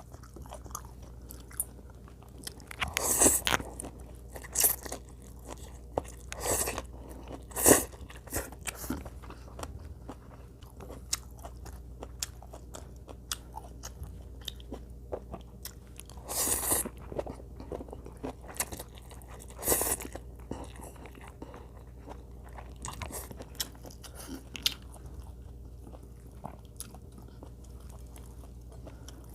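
A person eating close to the microphone: chewing and biting with wet smacking, and louder bursts every few seconds that thin out near the end, over a faint steady low hum.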